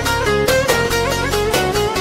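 Background music: an instrumental passage of a Turkish song, with a string melody over a steady beat.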